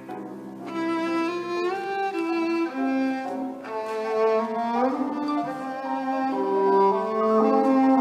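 Violin playing a melody of held notes, sliding up and down between some of them.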